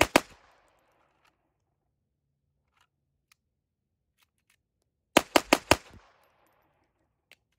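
Glock 44 .22 LR pistol fired in rapid strings: the last couple of shots of one string right at the start, then about five fast shots some five seconds in, roughly five or six a second, with faint clicks in between.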